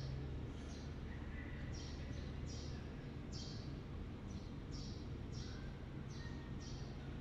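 Milking machine running in a milking parlour: a steady low hum with short, high hissing chirps repeating irregularly about once or twice a second, the kind of sound made by the pulsators on the milking clusters.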